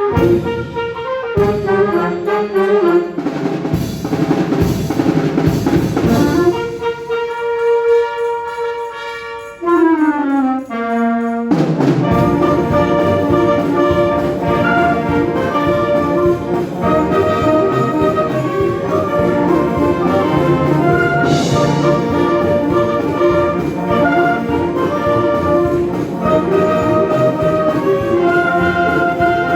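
Concert wind band playing, led by brass with percussion. It opens with drum strokes under brass chords, thins to a held note and a short falling figure, then the full band comes back in about twelve seconds in and plays on.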